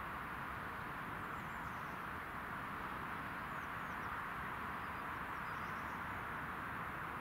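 Steady outdoor background hiss, with a few faint, short, high chirps of small birds.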